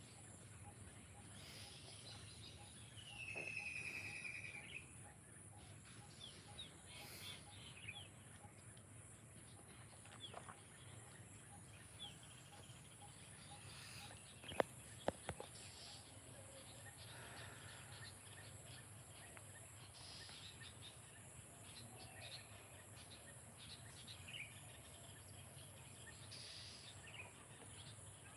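Quiet rural outdoor ambience: scattered bird chirps over a steady high insect buzz, with one louder bird call a few seconds in. About halfway through come two sharp clicks about half a second apart.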